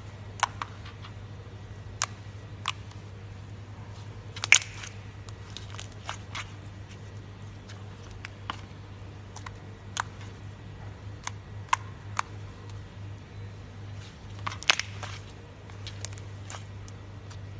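Fingers kneading and pressing soft slime close to the microphone, making irregular sharp clicks and pops as it sticks to the fingers and pulls away. A steady low hum runs underneath.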